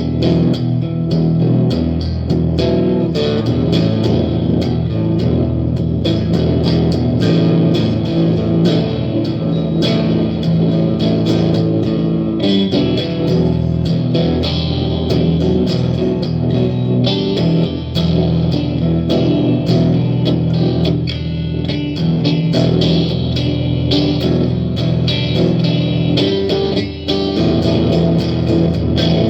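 Gretsch electric guitar played continuously, a dense stream of picked notes and chords.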